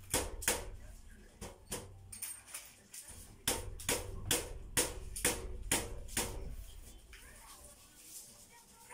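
A series of sharp knocks, a couple at first and then about three a second, over a low hum. Both stop around six and a half seconds in.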